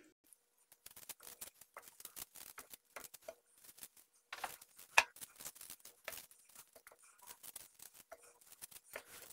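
Kitchen knife peeling a raw potato by hand: a run of short, irregular scraping and cutting strokes, with a sharper click about five seconds in.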